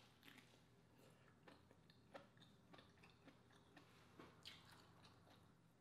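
Faint close-up chewing of a mouthful of soft, sauce-dipped lobster meat: wet squishy mouth sounds with scattered small lip smacks and clicks.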